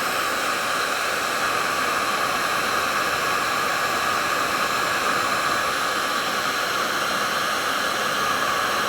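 Electric heat gun blowing steadily, a constant rushing hiss with a faint steady whine, as it heats a heat-shrink solder connector to shrink the tube and melt its solder ring.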